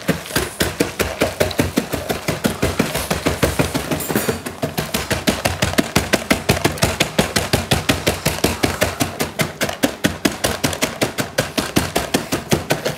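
Wooden rolling pin pounding rapidly and steadily into a plastic tub, several strikes a second, crushing nuts.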